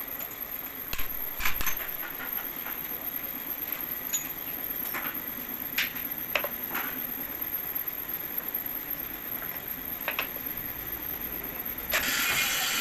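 Scattered metallic clicks and knocks of tools and engine parts being handled, over a steady background hum. About twelve seconds in, a louder hissing noise starts suddenly.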